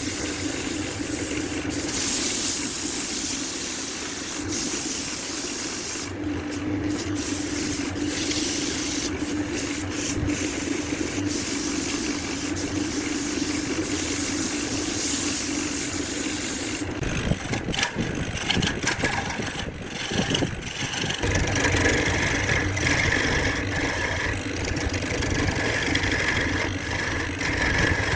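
A woodworking power tool's motor running steadily under a wide hiss; about two-thirds of the way through the sound changes, with more low rumble and a higher steady whine.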